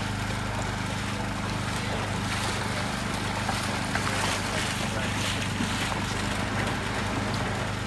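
An engine idling steadily, a low even hum, with a rushing hiss of wind and water over it.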